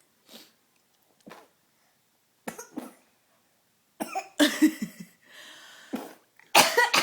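A baby's imitation coughs: a few short, quiet coughs at first, then a run of louder, rougher coughing sounds in the second half.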